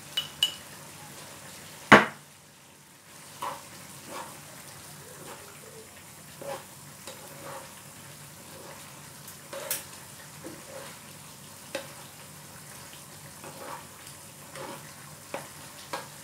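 Squid simmering in adobo sauce in a frying pan, a steady sizzle, with one sharp knock about two seconds in and then the light scrapes and clicks of a spoon stirring the squid against the pan.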